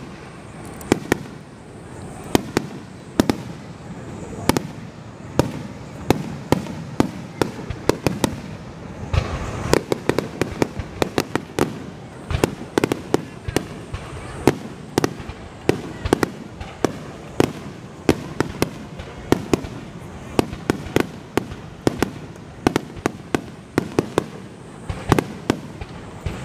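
Aerial fireworks shells bursting one after another in a dense run of sharp bangs, often a few a second, thickest about ten seconds in.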